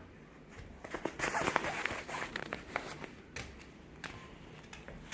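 Scratching and rustling with a quick run of sharp clicks, strongest between about one and three seconds in, then a few scattered clicks.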